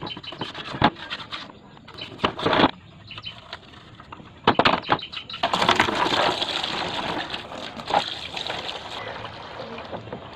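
Brush scrubbing and parts knocking against each other in a plastic basin, with a few sharp knocks, then from about five and a half seconds a stream of water from a hose pouring and splashing into the basin, steady and easing slightly toward the end.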